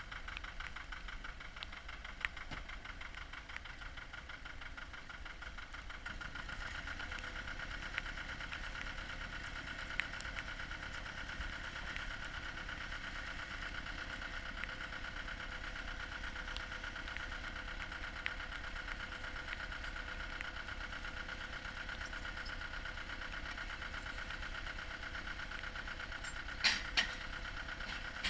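Engine of a cable percussion drilling rig running steadily, with a few faint clicks and two sharp knocks close together near the end.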